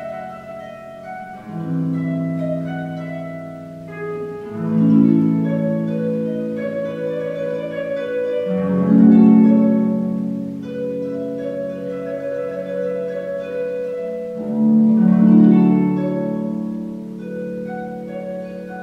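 Concert pedal harp played solo: plucked notes and chords left ringing, with louder swells of low chords at about four and a half, nine and fifteen seconds in.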